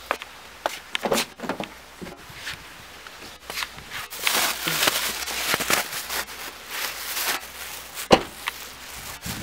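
Footsteps and handling noise from a handheld camera, with a stretch of shirt fabric rubbing over the microphone in the middle and one sharp thump near the end.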